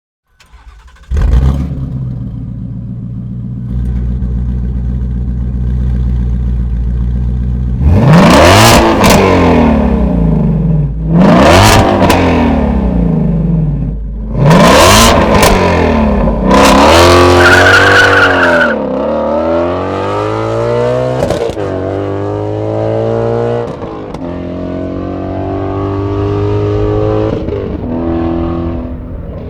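Ford Mustang Shelby GT350's 5.2-litre flat-plane-crank V8 through a Borla ATAK cat-back exhaust: it starts up about a second in and idles, then is revved sharply three times, each rev rising and falling in pitch. It then takes a longer rev and keeps running with smaller swells in engine speed.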